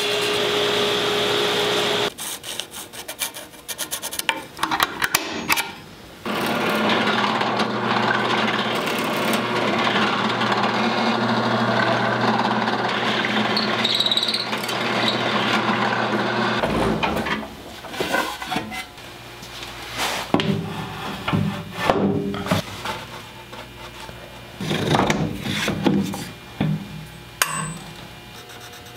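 A table saw cutting wood, stopping suddenly about two seconds in. Then a few scattered clicks, and a drill press running steadily for about ten seconds while drilling into wood. In the last dozen seconds come irregular knocks and clatter as wood blocks and bar clamps are handled and tightened.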